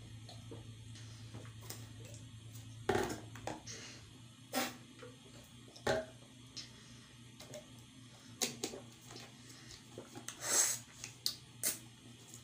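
Small clicks and knocks of a plastic sports-drink bottle and its screw cap being handled and set down on a table, spaced a second or two apart, with a short rustling hiss near the end.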